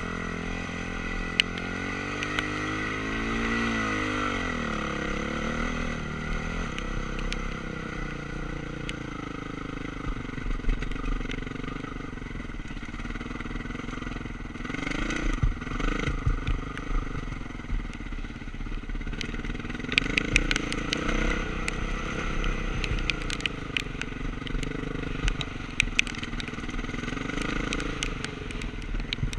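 Honda CRF450R's single-cylinder four-stroke engine running while being ridden at easy throttle, its revs rising and falling several times, with scattered clicks and knocks.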